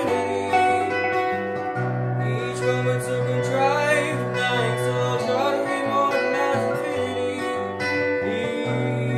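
Background song: a guitar with a singing voice.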